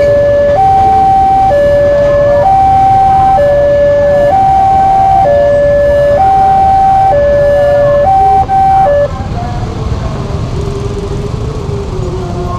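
Indonesian railway level-crossing alarm sounding its electronic two-tone warning, alternating high and low notes about once a second, over the low rumble of a tanker freight train passing. The alarm cuts off about nine seconds in, leaving quieter road traffic noise with motorbikes.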